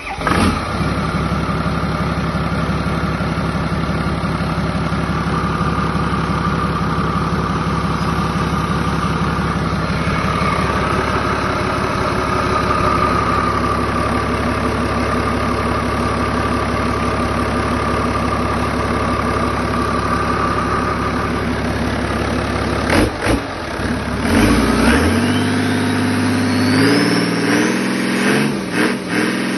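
Volvo Penta TAMD41 six-cylinder turbo diesel marine engine started with the key, catching at once, then running steadily at idle with a steady whine over it. From about two-thirds of the way in, a few knocks are heard and the engine is revved up in steps, a whine rising in pitch with it.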